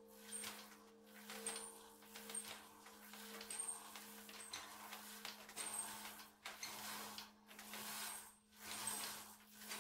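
Bronze church bell swinging in its timber frame without striking, the hum of its ringing lingering as a low steady tone. Short high squeaks come about once a second with the swing.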